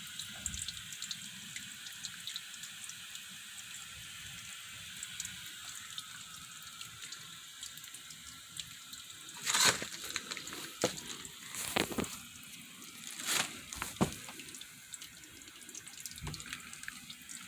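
Water leaking from a hot water heater: a steady hiss of running, dripping water. A few louder sudden sounds come in over the middle stretch.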